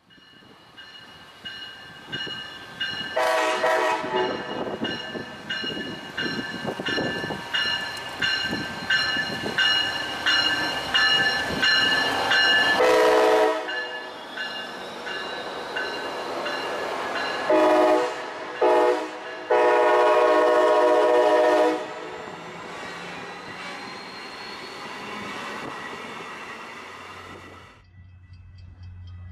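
Brightline Siemens Charger passenger train sounding its air horn several times: a long blast about three seconds in, a short one near the middle, then short, shorter and long blasts, over the noise of the train going by. A bell rings about twice a second between the first two blasts.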